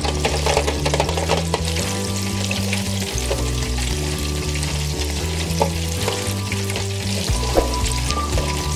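Breaded chicken pieces deep-frying in hot oil in an electric deep fryer's wire basket, a steady dense crackling sizzle, with a couple of light clicks as tongs move the pieces. Background music with a low bass line plays under it.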